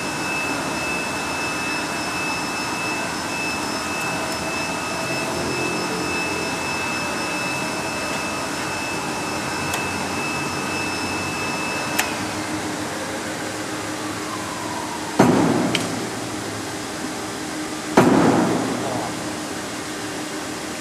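Guillotine paper cutter running with a steady hum and a high whine that stops about twelve seconds in, followed by a whine falling in pitch. Then come two loud metallic thumps about three seconds apart, each ringing out for about a second.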